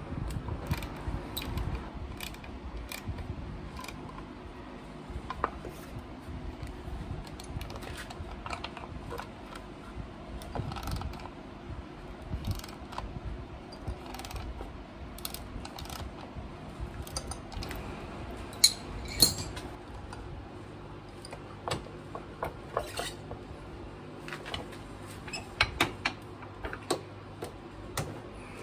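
Hand socket ratchet clicking in short runs as it turns the mounting bolts of a cast-iron bench vise, with occasional sharper knocks of metal and wood being handled.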